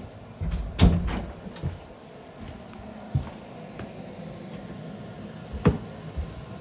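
A few knocks and clicks: a cluster of thuds with a sharp knock about a second in, then two more sharp clicks, one about halfway and one about a second before the end.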